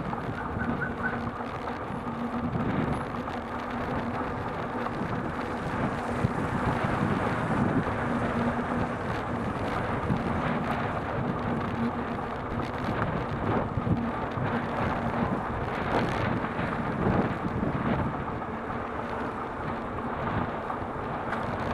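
Steady road noise of a bicycle ride on a city street: tyres rolling over asphalt, wind on the bike-mounted microphone and the murmur of traffic.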